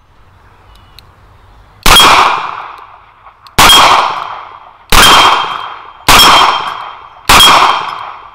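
Smith & Wesson Governor revolver firing .45 ACP handloads: five shots, the first about two seconds in, then roughly every one and a quarter to one and three quarter seconds. Each shot is followed by the ringing clang of a steel plate target being hit.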